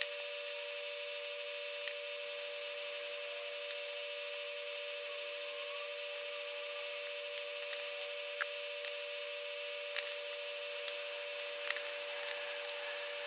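Faint, scattered clicks and taps of small parts being handled: MOSFETs pressed onto an aluminium heatsink and their screws set down. A steady faint hum runs beneath.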